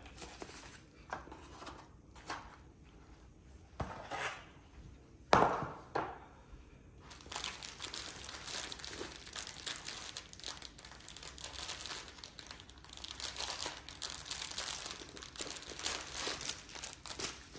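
Bubble wrap and plastic packaging crinkling and rustling as it is handled and unwrapped by hand. There are scattered clicks and two sharper knocks about five to six seconds in, and then steady crinkling from about seven seconds in.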